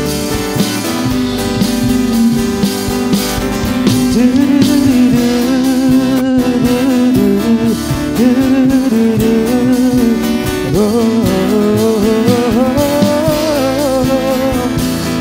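Live Javanese pop band playing: strummed acoustic guitars over bass and a drum kit, with a sung melody coming in about four seconds in and running until near the end.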